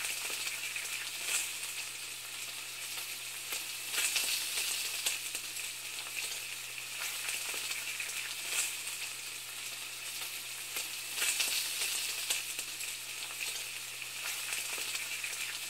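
Food sizzling in a hot pan: a steady crackling sizzle with a faint low hum underneath.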